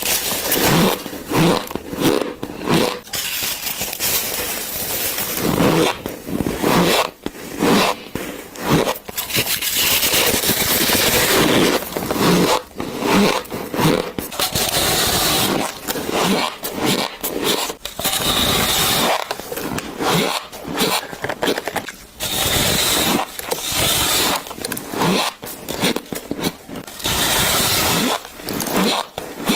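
Close-up bites and chewing of squeaky shaved ice: irregular crunching and scraping bursts, one after another with brief gaps.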